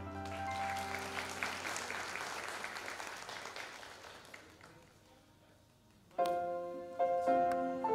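Audience applause that fades out over about four seconds as the last note of a song dies away. About six seconds in, an electronic keyboard starts playing again.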